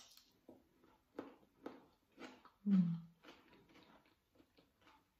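Close-up crunching of a raw cucumber stick being bitten and chewed: a series of short crisp crunches, with a brief low hummed "mm" a little under three seconds in.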